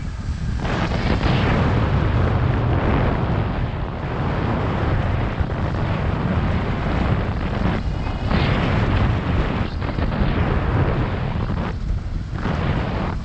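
Wind buffeting the microphone of an action camera held out on a selfie stick in paraglider flight: a loud, continuous low rushing rumble that eases briefly a few times.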